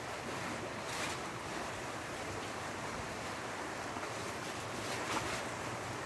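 Sea surf washing on the shore, a steady hiss of water with a wave breaking about a second in and another near the end.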